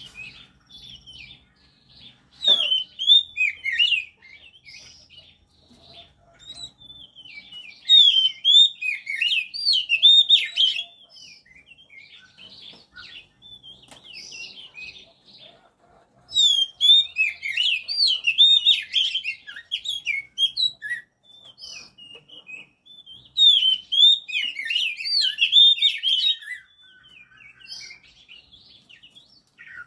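Oriental magpie-robin singing: four bouts of quick, varied warbled and whistled phrases, each a few seconds long, with softer single notes in the gaps between.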